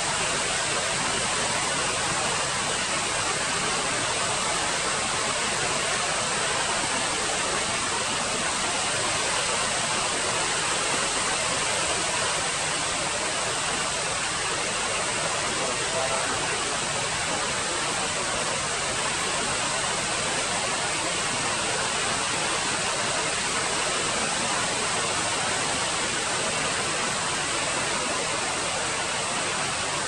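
Steady, even hiss of outdoor background noise, with no bird calls.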